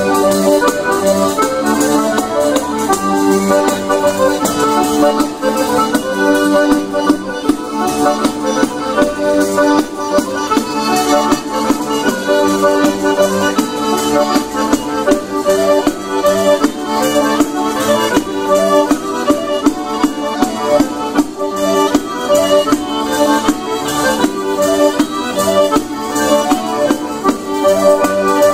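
Folk ensemble playing live, led by several organetti (diatonic button accordions), with zampogna bagpipes, a folk flute and a tamburello frame drum keeping time. Held tones run under quick melody notes.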